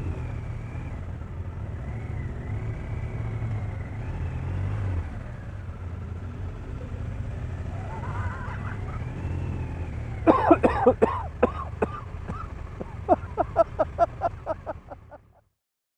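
BMW touring motorcycle engine running steadily at low speed as the bike idles and rolls off. Past the middle comes a quick run of short, sharp pitched pulses, about five a second, and the sound cuts off shortly before the end.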